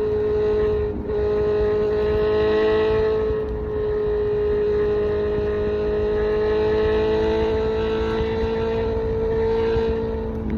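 Kawasaki Z900's 948cc inline-four through an SC Project exhaust, pulling at steady cruising revs with its note slowly climbing as the bike gently gains speed. There is a brief dip about a second in, and the pitch drops at the very end as the revs fall, over a low rush of wind.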